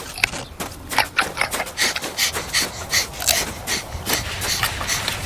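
Giant panda chewing a carrot, with irregular crisp crunches several times a second.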